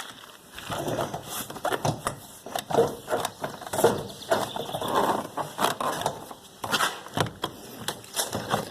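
Hand tools working on a car's interior door panel and its fasteners: irregular clicking, rattling and scraping.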